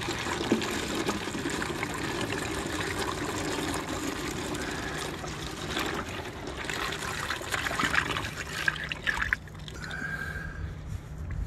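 Used engine oil pouring in a steady stream from a drain pan's spout into a plastic-jug funnel, with a trickling, splashing liquid sound. The flow eases off about nine seconds in.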